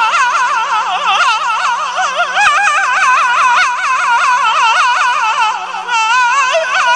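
Azerbaijani mugham music: an instrumental passage in which a melody line sweeps up and down with fast, wide vibrato over a steady low drone. A quick, high trill comes near the end.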